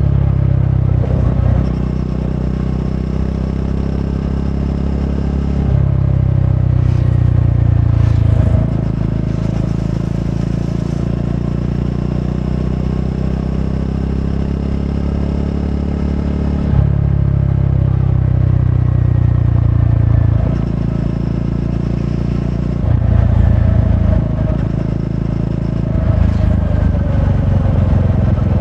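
Triumph Scrambler 400X's single-cylinder engine running through its stock exhaust, with the engine speed and loudness rising and falling several times.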